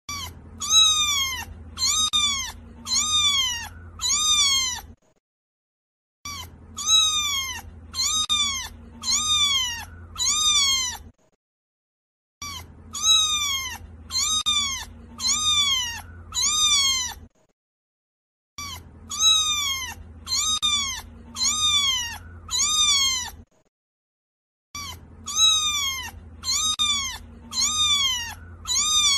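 A cat meowing high-pitched, rising-and-falling meows, about five in a row roughly a second apart. The same run repeats five times as a loop, with short gaps of dead silence between runs.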